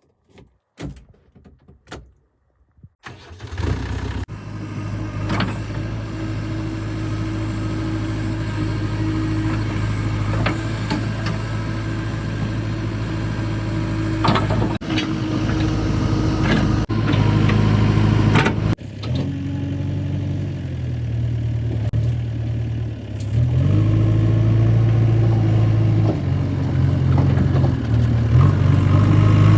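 A few short knocks, then a heavy diesel engine running from about three seconds in. It is steady at first, then rises and falls in revs a few times later on, and the sound breaks off abruptly several times.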